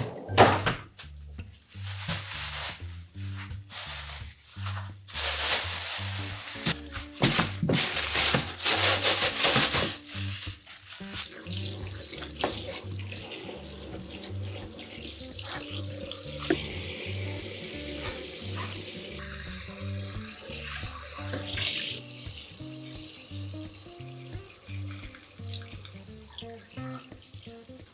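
Handling and rustling of a plastic grocery bag with sharp knocks, then a kitchen tap running steadily into a stainless-steel sink as a whole raw chicken and an octopus are rinsed under the stream, with background music throughout.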